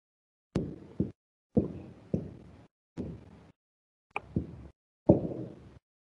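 Marker pen knocking and rubbing on a whiteboard during writing, heard through a video call: about seven short knocks, each fading quickly, with dead silence between them.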